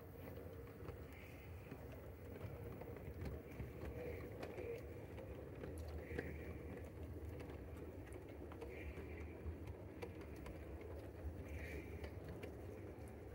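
O gauge model tank locomotive and its coaches running along the track: a steady low rumble of motor and wheels with scattered faint clicks over the rail joints.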